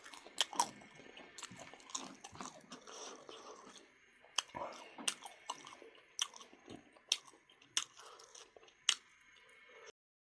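Close-up chewing of duck meat: wet, squishy chewing broken by sharp crunching clicks every half second to a second. The sound cuts off abruptly to silence near the end.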